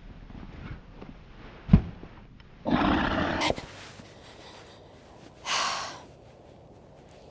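A woman's startled shrieks after a lizard spooks her: a thump a little under two seconds in, then a loud cry of about a second, and a shorter one a couple of seconds later.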